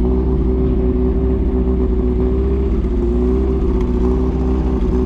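Car engine running steadily at a held speed, as a car does for a static noise test before going on track. The pitch dips slightly about three seconds in.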